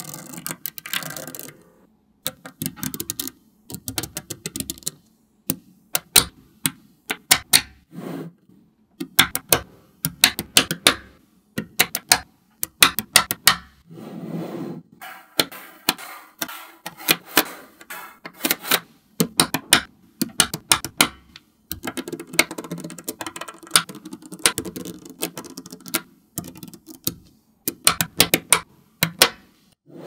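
Small magnetic balls clicking and snapping together in irregular runs of sharp clicks, with a few stretches of duller rattling between them.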